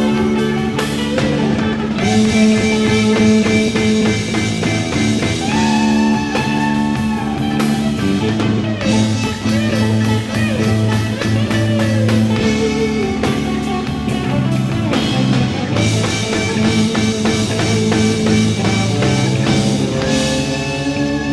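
Instrumental rock music with guitar and drum kit, playing sustained and bending notes over a steady beat.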